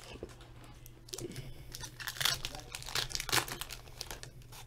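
Trading card pack wrappers crinkling and tearing open, a run of rustles from about a second in until near the end.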